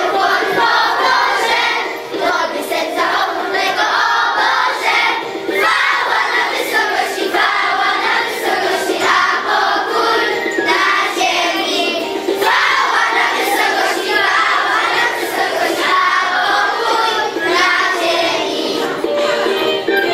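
A group of children singing a song together, with music.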